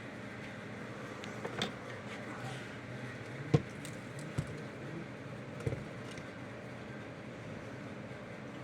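A few light clicks and taps of small parts being handled on a workbench, over a steady background hum. The sharpest tap comes about three and a half seconds in.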